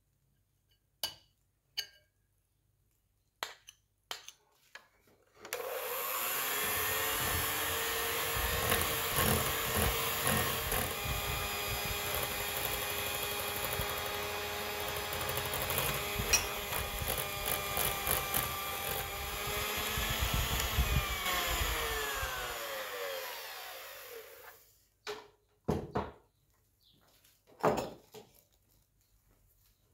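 Electric mixer beating a yogurt batter in a glass bowl. It runs steadily for about 19 seconds, then its pitch falls as it winds down and stops. A few light clicks and knocks come before it starts and after it stops.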